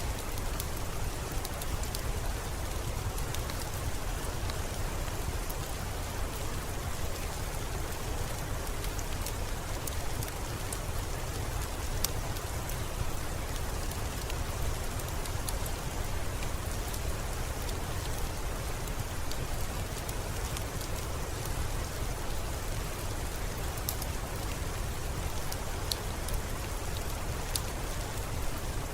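Steady rain: an even hiss with a deep low rumble beneath and scattered sharp drop ticks.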